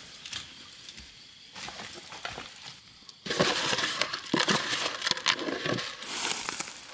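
Light crackling of dry leaves and twigs, then, about three seconds in, a louder run of rattling and rustling as a hand scoops seed out of a cut-open plastic container.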